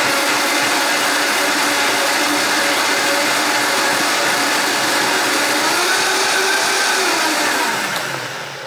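Vitamix blender running at high speed, blending cut-up fruit and soy milk into a shake: a loud, steady motor whir that winds down near the end.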